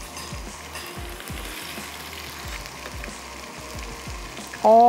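Tomatoes and ginger-garlic paste sizzling steadily in hot oil in a wok.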